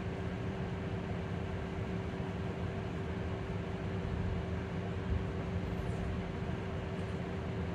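Electric bus heard from inside, humming steadily: one held tone, level in pitch, over a low rumble and hiss.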